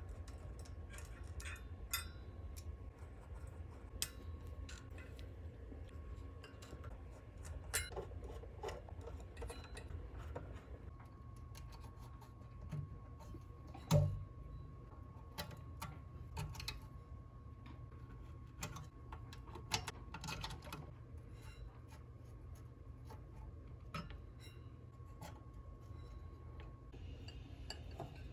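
Scattered quiet clicks and taps of a screwdriver, screws and metal parts as an amplifier module on its finned aluminium heatsink is unscrewed and unplugged from the power amplifier's chassis, with one louder knock about halfway through. A steady low hum and a faint steady high tone sit underneath.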